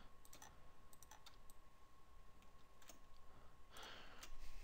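Faint, scattered clicks from a computer mouse and keyboard being worked, over a faint steady hum. A short, soft noise comes near the end.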